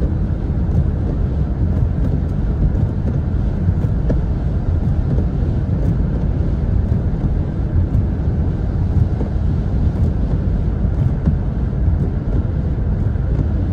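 Steady low rumble of a car's engine and tyres on a wet road, heard from inside the moving car's cabin.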